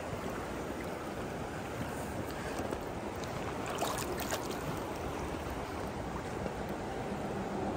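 Steady rush of river water at close range, with light splashing about four seconds in as a small trout is brought to hand at the surface.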